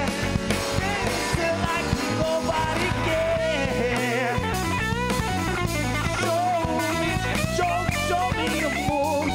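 Live band playing an upbeat rock-pop song: guitar and electric bass over drums, with a sung melody line weaving over the top.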